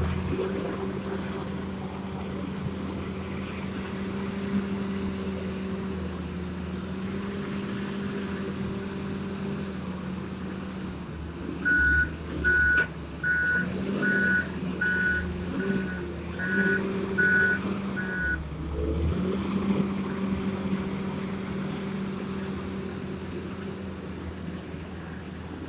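Wheel loader's diesel engine running steadily under work, its pitch shifting a little as it is worked. In the middle a reversing alarm beeps about nine times at an even pace, roughly one and a half beeps a second, as the loader backs away from the dump truck.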